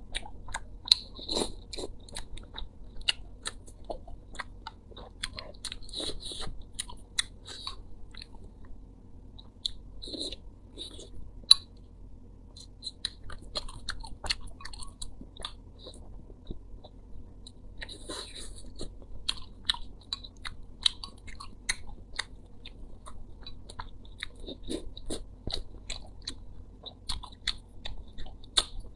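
Close-miked chewing and biting of spicy small cuttlefish ('sea hare') with the cartilage left in: irregular wet clicks and crunches throughout.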